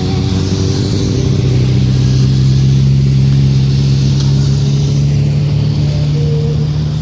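Motorcycle engine running steadily at a constant low pitch.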